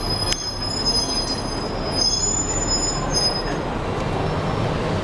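Steady rumbling vehicle noise with thin, high-pitched whines over it and a few light clicks.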